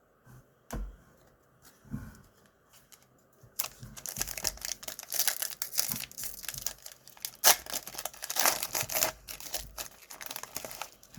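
A couple of soft knocks. Then, about three and a half seconds in, a Panini Donruss Optic baseball card pack's wrapper is torn open and crinkled, the crackling running on for several seconds.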